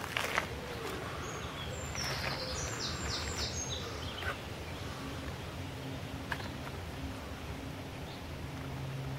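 Outdoor garden ambience with birds singing: a quick run of short, high chirping notes about two to four seconds in, over a faint steady low hum.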